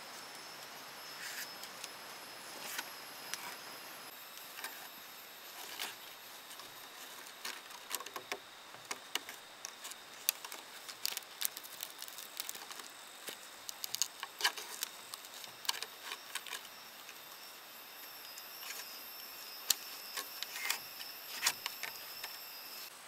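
Scattered light clicks and taps coming irregularly, thicker in the second half, over a steady faint high-pitched hum.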